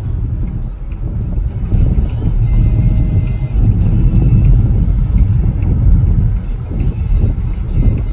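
Low, fluctuating rumble of a moving road vehicle.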